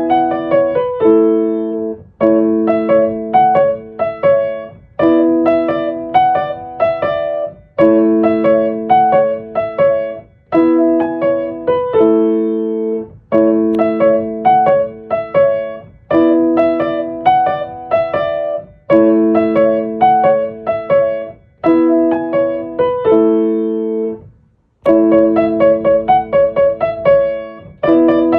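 Solo piano music: a gentle melody over repeated chords, played in short phrases with brief pauses between them.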